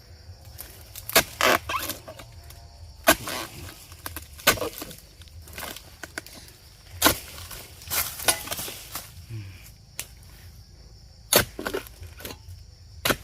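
Oil palm harvesting: a series of sharp cutting strikes and crashes as a harvesting pole chops palm fronds and ripe fruit bunches, which drop and thud. There are about eight hard hits, irregularly spaced, two of them close together near the start and a last one late on.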